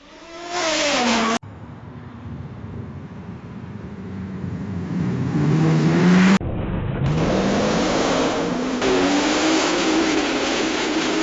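Car engine sound effects spliced together with abrupt cuts: first a short loud burst whose pitch falls, then an engine revving up with rising pitch, then an engine running hard with a wavering pitch and a noisy rushing layer above it.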